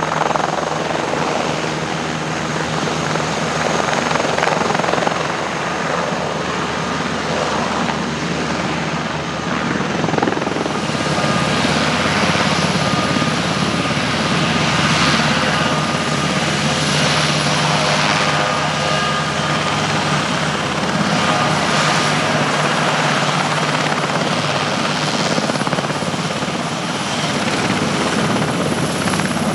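Military turbine helicopter running close by, a steady loud rotor and engine noise. A high steady whine joins about ten seconds in.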